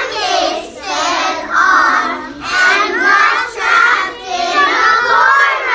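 A group of children's voices speaking together in unison, a sing-song chant of a story line in loud, rhythmic phrases.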